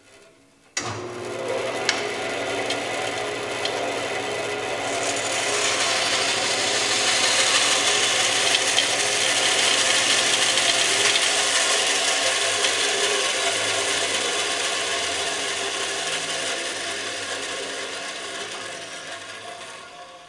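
Bandsaw starting up about a second in, its motor giving a steady low hum, then the blade cutting a curve through a thin wooden board, a dense sawing noise that builds from about five seconds in and dies away near the end.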